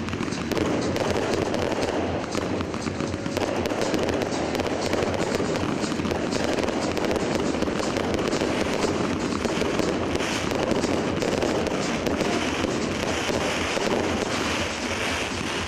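Fireworks display going off: a dense, continuous barrage of crackling pops.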